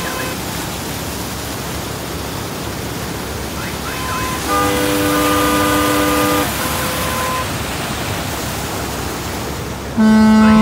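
Steady rush of water from a mountain stream. About four and a half seconds in, a held pitched tone lasts about two seconds, and near the end a louder held tone starts.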